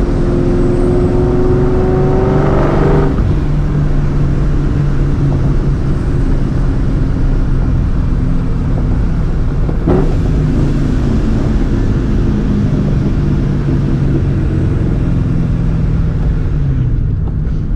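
Straight-piped, supercharged 4.6-litre two-valve V8 of a 2004 Ford Mustang GT pulling through a gear. The engine note rises for about three seconds and breaks at a shift, then holds steady at cruise. There is a short knock about ten seconds in, and the note drops away near the end as the car slows for a downshift.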